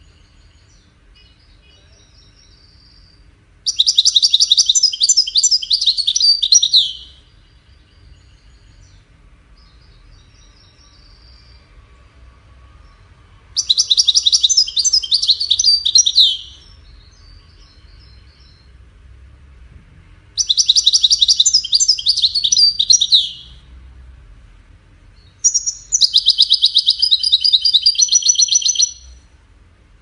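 European goldfinch singing: four loud, fast trilled phrases of rapidly repeated high notes, each about three seconds long, with soft twittering in the gaps between them.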